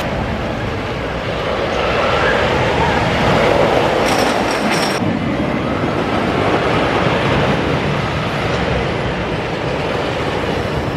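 Wooden roller coaster train rumbling and clattering along its timber track, with a brief high squeal about four seconds in.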